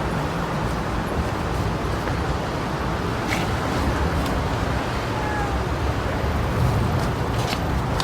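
Steady outdoor background rumble and hiss with a few faint ticks.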